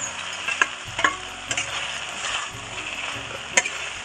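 Fried small fish tipped from a steel bowl into a pan of hot masala, sizzling steadily as a flat spatula stirs them in. A few sharp clicks sound against the pan: about half a second in, at a second, and near the end.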